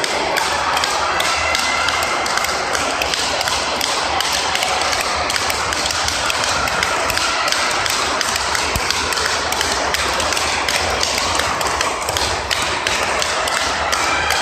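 Speedball racket strikes on the tethered ball, a rapid, regular run of sharp taps several a second with no break, over steady background noise.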